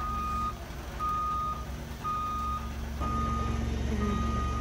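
Boat travel lift's warning beeper sounding while the hoist drives: a steady tone about half a second long, once a second, over the low hum of its engine, which gets a little louder about three seconds in.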